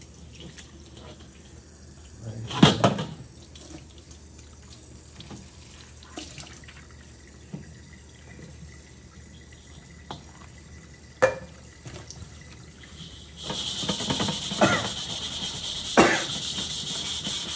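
A metal wok being handled and rinsed in a stainless steel sink: scattered knocks and clunks of metal, then about thirteen seconds in the faucet comes on and runs with a steady hiss, with two louder knocks on top of it.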